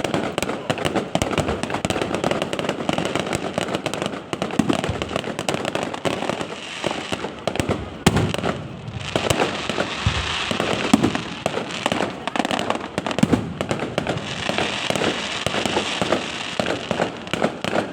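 Fireworks display: a continuous stream of bangs and pops, with bursts of dense crackling about halfway through and again near the end.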